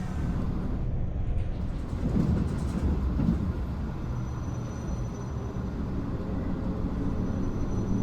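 Passenger train running on the rails, heard from inside the carriage: a steady low rumble and rush of wheel and track noise, rougher for a moment about two seconds in.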